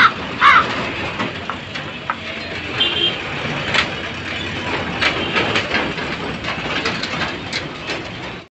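Road traffic running steadily, trucks and motorbikes on a dusty road, with scattered small knocks and rattles. A crow caws about half a second in, and the sound cuts off suddenly near the end.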